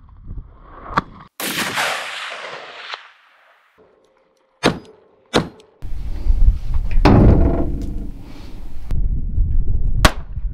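A string of separate gunshots from different firearms, about five sharp reports a second or more apart. One early shot is followed by a long, echoing decay, and a low rumbling noise runs under the second half.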